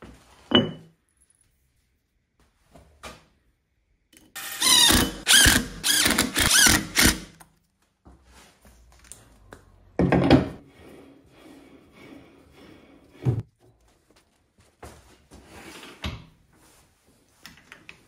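Handling noise from a rough log blank and its metal faceplate being fitted to a wood lathe: several separate dull thunks, and a louder stretch of rattling noise lasting about three seconds, a few seconds in.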